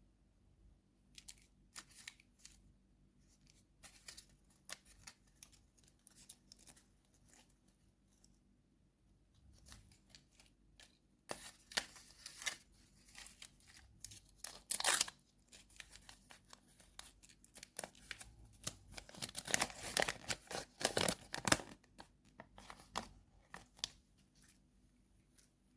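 Candy wrapper being torn open and crinkled in the hands: scattered crackles at first, then denser, louder tearing and crinkling through the second half.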